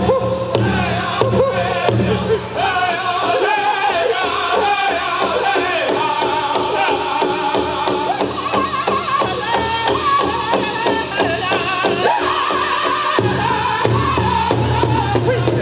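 Powwow drum group singing a chicken dance contest song in high voices over a steady beat on the big drum, with the dancers' bells jingling.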